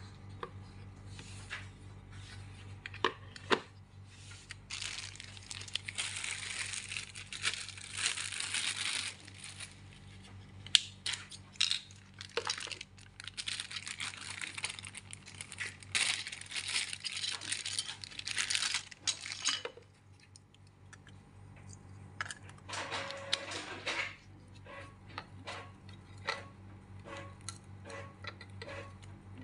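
Plastic packaging bags crinkling and tearing as parts are unwrapped by hand, in long rustling stretches through the middle, with scattered clicks and light knocks of small parts and cables being handled. A steady low hum runs underneath.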